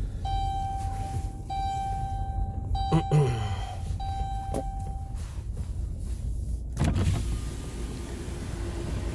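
Dodge Grand Caravan's driver-door power window motor whining as the glass is lowered in several short runs, with a knock about three seconds in. A low vehicle hum runs underneath, and there is a thump near the end.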